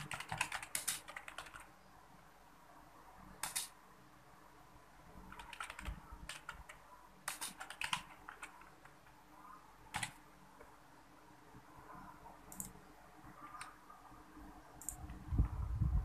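Computer keyboard keys clicking in scattered short bursts of typing, with a low bump or rumble near the end.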